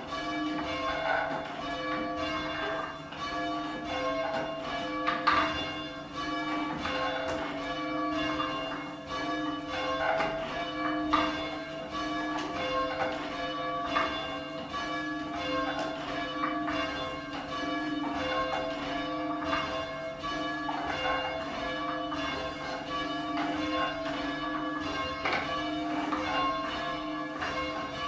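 A tower of church bells ringing in a steady stream of strikes, one bell after another, their tones overlapping and ringing on.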